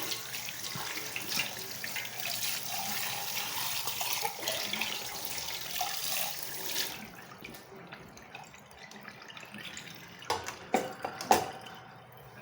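Kitchen tap running as a cup is rinsed under it, the water shutting off about seven seconds in. A few sharp clicks and knocks follow near the end.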